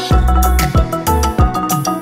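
Background music: an electronic track with a repeating melody over a deep bass beat that drops in at the start.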